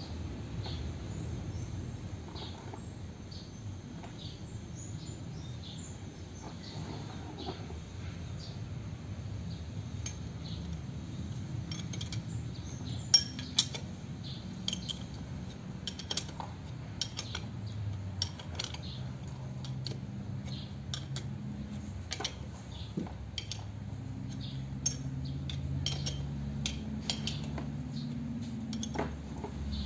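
A steel spanner clinking and clicking against the bolts on a truck differential carrier's drive-pinion housing as the bolts are tightened: scattered sharp metallic clicks, few at first and coming thick and fast in the second half, over a steady low hum.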